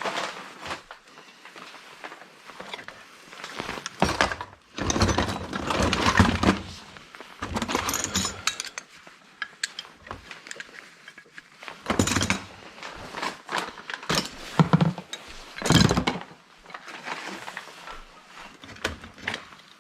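Metal hand tools being handled, sorted and set down. Irregular clinks, knocks and clatters come in several louder spells, with quieter rummaging in between.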